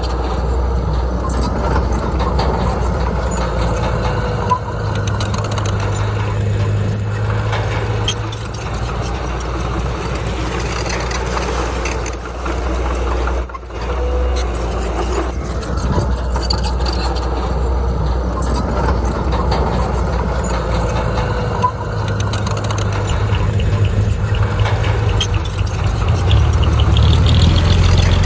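Heavy diesel earthmoving machinery running steadily under load, with scattered metallic clanks, a brief break about halfway, and growing louder near the end.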